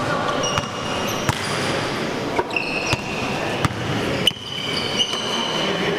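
Basketball game on an indoor court: the ball thuds sharply on the floor several times at uneven spacing, and sneakers give short high squeaks against a constant background of hall noise.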